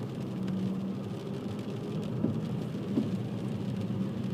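Car running at low speed, heard from inside the cabin: a steady low engine and road drone, with tyres on a wet road and a few light taps.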